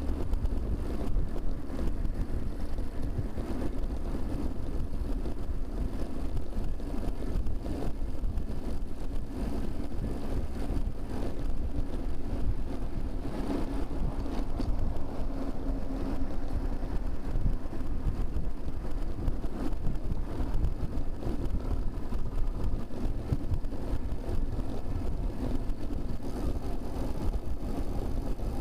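Steady wind rush and low rumble on a moving bicycle's microphone, with motor traffic passing; the traffic noise swells for a few seconds around the middle.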